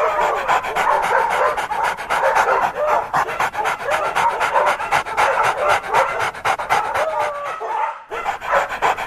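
A dog panting rapidly and steadily, with short whines and yips over the panting. It breaks off briefly near the end.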